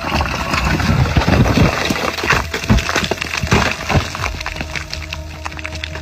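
A rapid, irregular clatter of sharp cracks and knocks, dense in the first few seconds and thinning toward the end.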